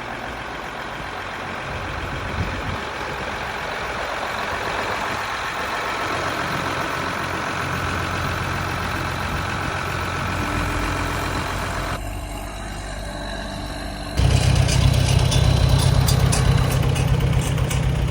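Heavy machinery engines running steadily. About fourteen seconds in, a louder engine with a deep, steady low hum takes over.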